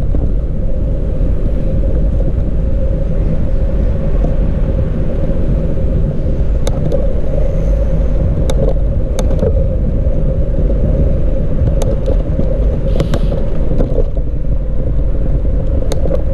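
Steady rumble of wind on the microphone and road noise from a moving bicycle, with a handful of sharp clicks in the second half.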